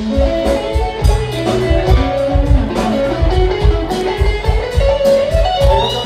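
Live band playing: electric guitar carrying a stepping melodic line over bass and drums with a steady beat.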